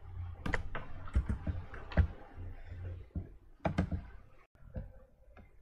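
Irregular light clicks and taps in small clusters, over a faint low hum.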